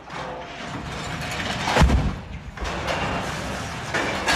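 A lattice-boom crawler crane toppling over and crashing to the ground: a deep, heavy crash about two seconds in, with continued crashing noise after it and a second loud surge near the end.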